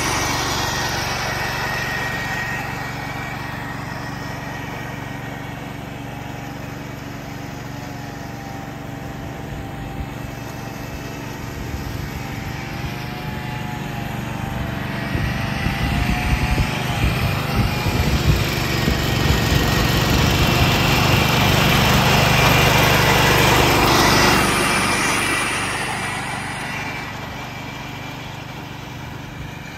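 1969 Ford 140 garden tractor's engine running steadily with its mower deck chopping through dry leaves. The sound softens as the tractor moves off, grows louder and rougher as it comes close, and fades again after it passes, about four-fifths of the way in.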